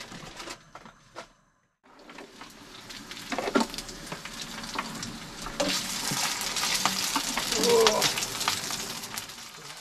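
Pieces of meat sizzling in hot oil in a frying pan on a gas hob, with sharp clicks of metal tongs against the pan as they are turned. The sizzle grows louder in the second half.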